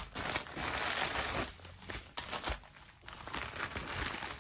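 Crinkling of plastic packaging as clear plastic bags of rhinestones are pulled out of a padded mailer and set down on a table. It is loudest for the first second and a half, then settles into quieter, scattered rustles.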